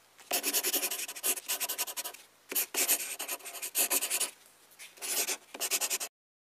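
Pencil writing on paper: scratchy scribbling in quick strokes, coming in several bursts with short pauses, then cutting off abruptly about six seconds in.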